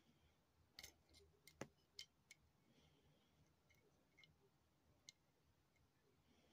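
Near silence broken by a few faint, sharp clicks: a quick cluster of about half a dozen between one and two and a half seconds in, and a single one about five seconds in.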